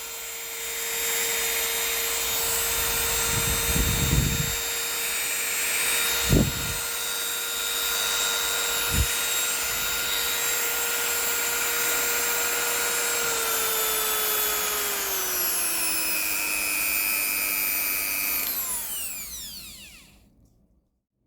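Corded rotary tool's motor running at high speed with a steady whine and a few knocks, then slowing to a lower speed about two-thirds of the way through. Near the end it is switched off and spins down to a stop.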